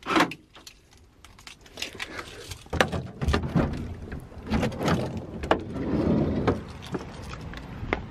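Keys jangling, then a camper van's sliding side door being unlatched and opened: a sharp click, then a run of clicks and clunks that grows louder about three seconds in as the door opens.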